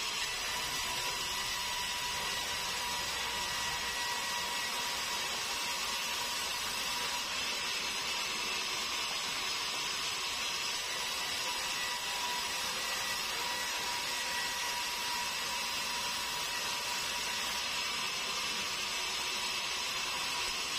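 Sawmill band saw running steadily as meranti logs are sawn into boards: an even machine noise with a constant high whine over it.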